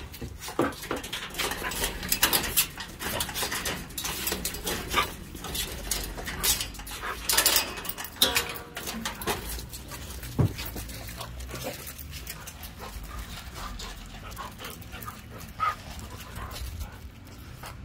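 Metal rattling and clanking of a galvanized chain-link kennel gate and its fork latch as the latch is worked, with a dog standing up against the wire. The rattling thins out after about nine seconds. Dogs then move about, with one short, high whine near the end.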